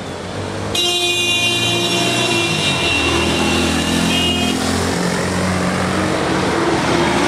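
Street traffic with a vehicle horn sounding, starting suddenly about a second in; the horn's higher tones stop about halfway through, while lower steady tones carry on over the traffic noise.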